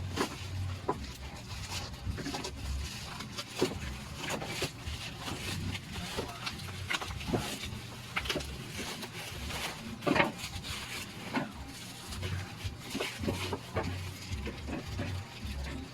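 Unboxing a cordless handheld vacuum cleaner: scattered clicks, taps and rustles of its parts and packaging being handled. The louder knocks come about three and a half and ten seconds in.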